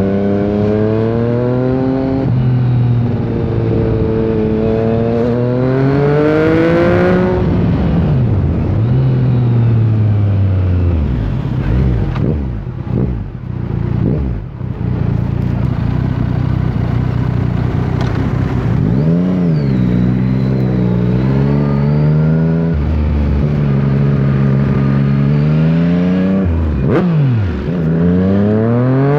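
Yamaha MT-09's inline three-cylinder engine under way, its pitch climbing as the bike accelerates and dropping back sharply at each gear change, several times over. Midway the engine eases off and dips before pulling up through the revs again near the end.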